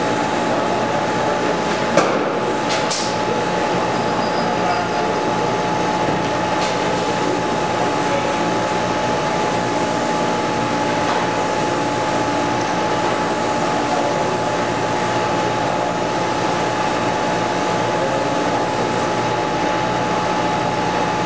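Small power cutting tool running steadily with a high whine as it cuts. There is a sharp click about two seconds in.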